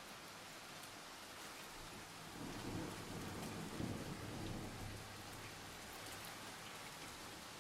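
Steady rain falling, with a low rumble of thunder that swells about two seconds in and dies away a few seconds later.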